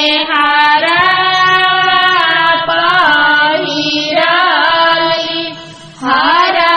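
A single high voice singing a dehati dhan ropni geet (paddy-transplanting folk song), drawing out long held notes with small bends of pitch. It breaks off briefly near the end and starts again.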